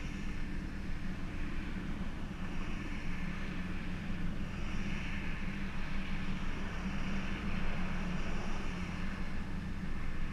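Holden Commodore VR's 3.8-litre V6 engine and exhaust running with a steady low drone, slowly swelling and easing every couple of seconds.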